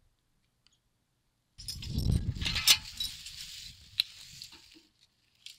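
Near silence for about a second and a half, then an old steel tractor three-point hoist being lifted and handled: low noise with metal clinks and rattles, the sharpest clinks about a second after it starts and again near the end.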